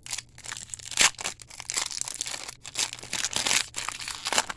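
Plastic or wax wrapper of a trading-card pack being torn open and crinkled by hand: irregular crackling, with a sharp loud crackle about a second in.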